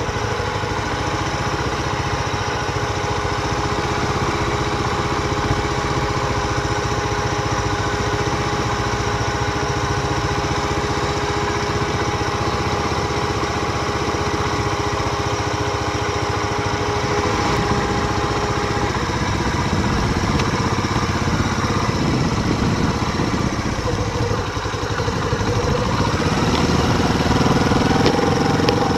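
Steady riding noise of a mountain bike picked up on the action camera's microphone, a dense rumble of rolling tyres and air. A thin steady whine runs through it and stops about two-thirds of the way through.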